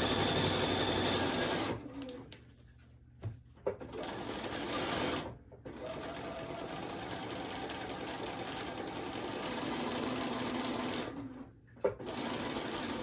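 Bernina sewing machine stitching binding on through a binder attachment. It runs in stretches, stopping and starting three times, with short clicks in the pauses.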